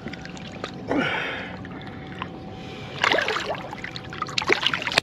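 Water splashing as a freshly caught striped bass is released by hand over the side of the boat. It comes in two bursts, about a second in and again about three seconds in, over a faint steady hum.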